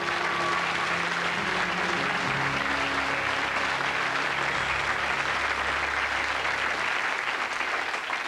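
Studio audience applauding steadily, over a few sustained music notes that fade out about two-thirds of the way through.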